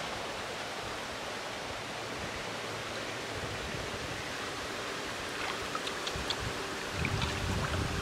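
Flowing river water making a steady rush, with sloshing and splashing near the end as a person wades chest-deep through it.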